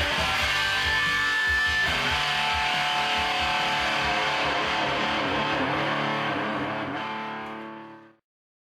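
Rock music on electric guitar. After about two seconds a chord is left ringing; it fades away and stops just past eight seconds.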